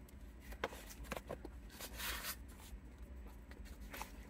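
Faint chewing and mouth smacks from a man eating a shuco, a loaded Guatemalan hot dog, with a brief scratchy rustle about two seconds in, over a low steady hum in the car cabin.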